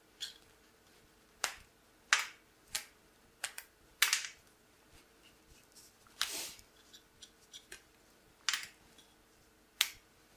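Plastic tabs being snapped off a two-part plastic dinner candle mould: about nine sharp clicks at uneven intervals, with a longer, scraping snap about six seconds in.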